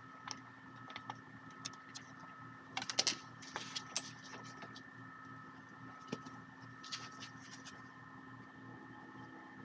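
Small metallic clicks and clinks as the rear brake pads and wear sensor of a 2017 Mini Cooper are handled and worked out of the brake caliper, with a quick cluster of sharper clicks about three seconds in and another near seven seconds. A steady faint hum runs underneath.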